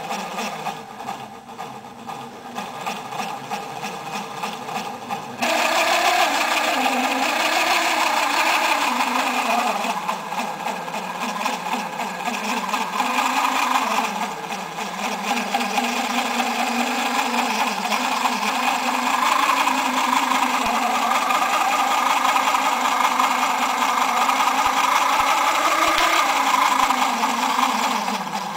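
Small electric gear motor whirring as it drives a homemade chipboard crawler model's tracks, with the wooden track shoes clattering. It gets louder about five seconds in, and its pitch wavers as the load on the climb changes.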